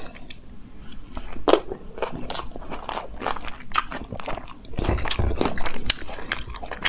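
Close-miked chewing and biting of a handful of veg fried rice with Manchurian gravy, with many short crunchy clicks that are loudest about five seconds in.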